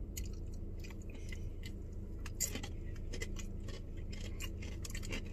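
Chewing a crunchy tortilla chip loaded with guacamole: irregular crisp crunches and clicks over a low steady hum.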